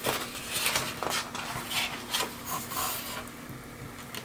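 Paper rustling as a hand handles and turns the page of a picture book: a quick run of short scrapes and swishes that dies away after about three seconds.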